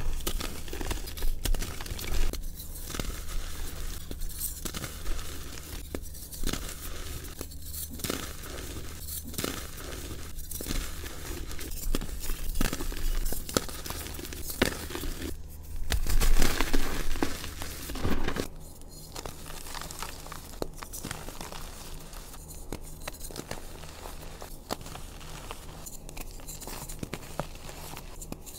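Dyed reformed gym chalk being squeezed and crushed in the hands: dense crackling and crunching as the chalk breaks and crumbles into powder. It is loudest a little past the middle, then settles into softer crumbling, over a faint low hum.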